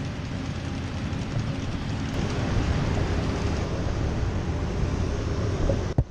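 Wind buffeting a small action camera's microphone outdoors, a steady rumbling rush with a faint hum of airport vehicles or aircraft under it. A single sharp knock near the end.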